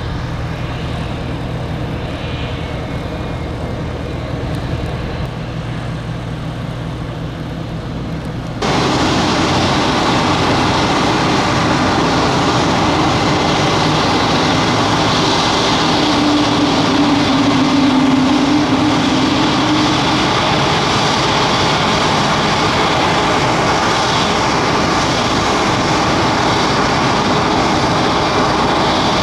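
Diamond DA-42 Twin Star twin-engine propeller aircraft running, at first a steady lower engine hum, then abruptly much louder and fuller about a third of the way in, staying loud to the end.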